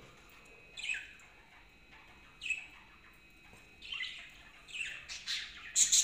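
Budgerigars chirping and squawking in a cage: short, high, downward-sweeping calls, a few spaced out at first, then coming quicker and louder near the end.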